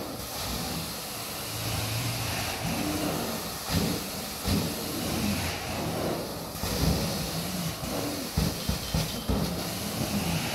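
Hot water extraction carpet wand working on carpet: a steady hiss of suction and water spray through the floor tool, with irregular low bumps as the wand is pushed and pulled across the pile.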